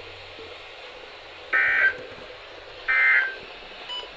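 Emergency Alert System end-of-message signal: short bursts of SAME digital data tones, the first about a second and a half in and the second about a second after it, with a third starting at the very end. The three bursts mark the end of the alert message.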